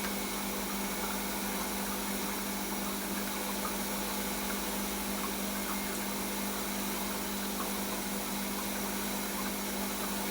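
Centrifugal mist humidifier running steadily: a constant motor hum over an even hiss of spray.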